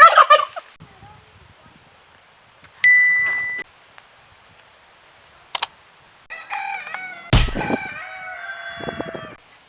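A rooster crowing: one long crow of about three seconds starting around six seconds in, with a heavy thump partway through it. Earlier, a single short steady ding at about three seconds.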